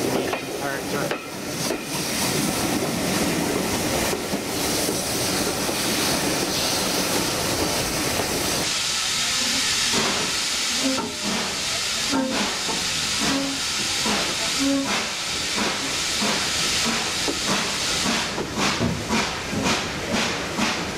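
Steam-hauled train heard from a carriage window behind GWR Manor-class locomotive 7828 Norton Manor: a mix of running noise and steam. About eight seconds in, a strong steady hiss of steam sets in. Near the end, a regular beat at about two a second appears.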